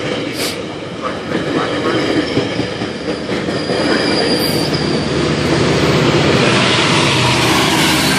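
GO Transit bilevel passenger coaches rolling past close by: a steady rumble with wheel clicks over the rails and a faint high wheel squeal about four seconds in. It grows louder from about five seconds as the diesel locomotive at the rear comes alongside.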